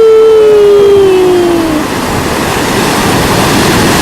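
A drawn-out "wheee" from a person's voice, sliding down in pitch and ending about two seconds in, over the steady rush of ocean surf as a wave washes up the beach.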